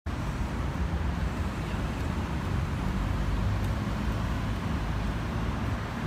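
Steady outdoor urban background noise with a heavy low rumble, like city traffic and wind heard through a phone microphone.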